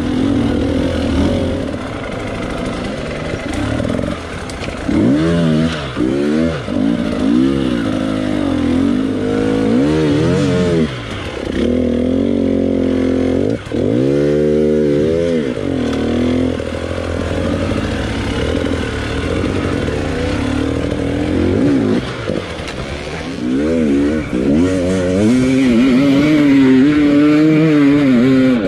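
Enduro dirt bike engine revving up and down in repeated surges as the rider works the throttle over rough ground. Near the end it holds a steadier, louder, higher-pitched run.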